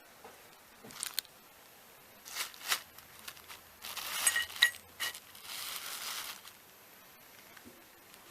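Handling noise: rustling and crinkling of packaging, with a few light metallic clinks, as new clutch parts (release levers and release bearing) are handled.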